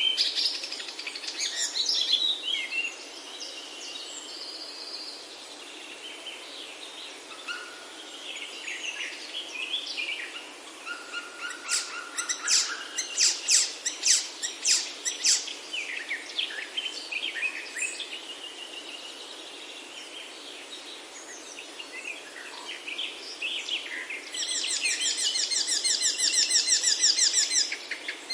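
Several wild birds singing and calling: varied whistled phrases and chirps, a quick run of rapid chips about halfway through, and a fast, even trill over the last few seconds.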